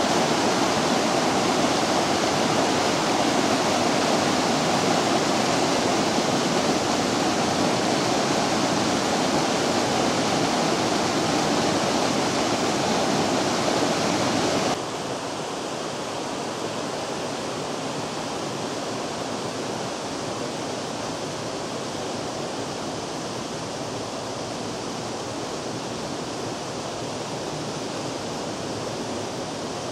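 Rushing water of the Vydra river running steadily over its bed; about halfway through it becomes suddenly quieter and duller, then carries on steady.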